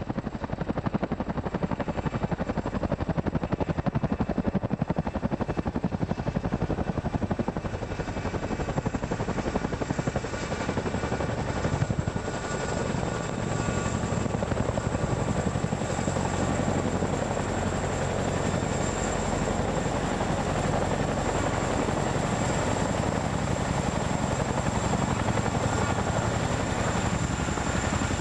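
CH-47 Chinook tandem-rotor helicopter coming in to land and settling into a low hover: a fast, steady beat of rotor blades with a thin high turbine whine over it.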